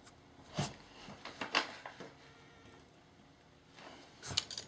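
Hard plastic parts of a Hasbro Transformers Dark of the Moon Deluxe Ratchet figure clicking as they are turned and repositioned by hand: a few short separate clicks, about half a second in and at about a second and a half, then a quick cluster near the end.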